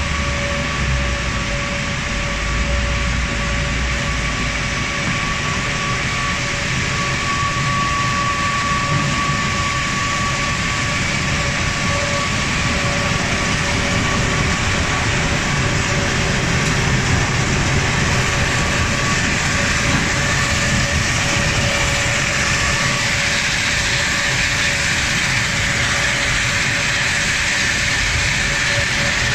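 Crawler-mounted mobile crushing and screening plant running: a steady, loud mechanical din with a low rumble, a constant whine and the hiss of crushed stone pouring off the conveyors.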